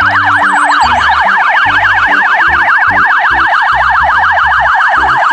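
Police car siren on a fast warble, its pitch sweeping up and down about ten times a second, loud and steady.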